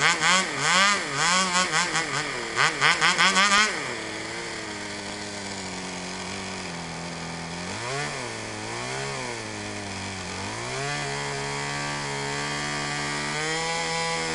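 Cox .049 Black Widow glow engine, a tiny two-stroke model-aircraft engine swinging a 6x3 propeller through its Dragonfly muffler-throttle. For the first few seconds it is blipped rapidly up and down, responding instantly to the throttle, then drops to a lower steady speed, rises briefly twice, and opens up to a higher steady speed about eleven seconds in.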